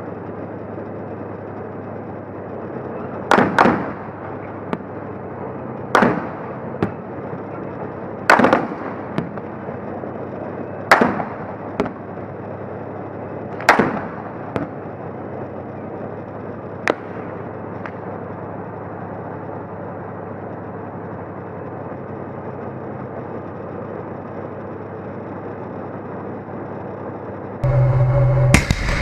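Gunfire heard from on top of a tank: five loud, sharp shots roughly every two and a half seconds, with fainter single cracks between and after them, over the steady rumble of the tank's running engine. Near the end the sound changes abruptly to a louder, steady hum.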